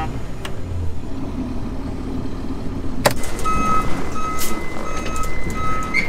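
A vehicle engine running low and steady. About three seconds in there is a sharp click, and after it an electronic warning beep repeats about twice a second over a steady high tone.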